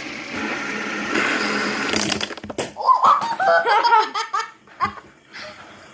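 A child laughing and giggling in quick, high-pitched bursts, after about two seconds of steady rushing noise.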